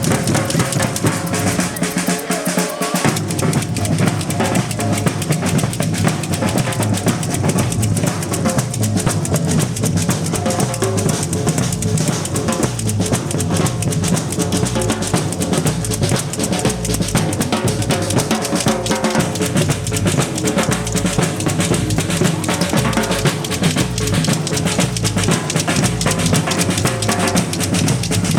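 Percussion group drumming live: a dense, steady rhythm of snare-type drums with deep bass drums that come in about three seconds in and keep pounding out the beat.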